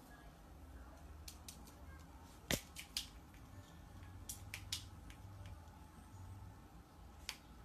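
Scattered faint, sharp clicks, with a louder single tap about two and a half seconds in and another just after, over a low steady hum.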